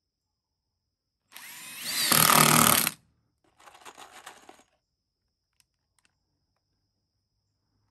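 Power drill running in a burst of about a second and a half that builds in level, then a shorter, quieter burst a moment later.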